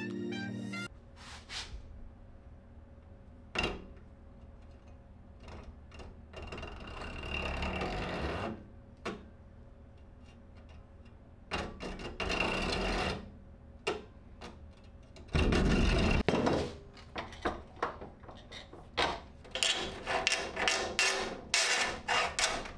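Hacksaw cutting a thin plastic sheet, about 1 mm thick, held in a vise: several runs of rasping saw strokes, the loudest about two-thirds of the way through, with a fast run of short strokes near the end. Clicks and knocks from handling the saw and sheet come between the runs.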